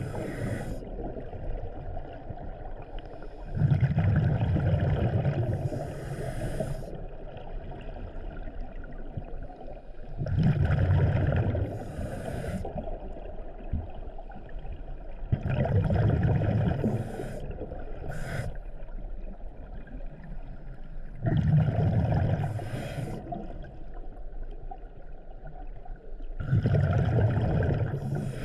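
Scuba diver breathing through a regulator underwater: a low rumble of exhaled bubbles about every five to six seconds, each lasting about two seconds, then a short hiss as the diver inhales.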